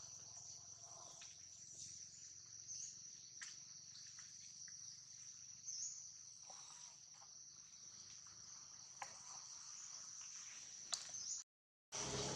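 Steady, high-pitched drone of insects in the forest, with a few faint clicks and rustles. The sound cuts out completely for about half a second near the end.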